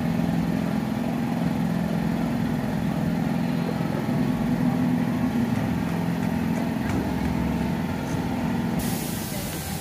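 Steady low hum of amusement-ride machinery running, with a few even tones. A hiss sets in near the end.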